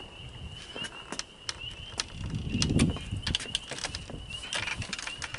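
Faint high-pitched chirping, repeating irregularly two or three times a second, with scattered light clicks and knocks and a low thump about two and a half seconds in.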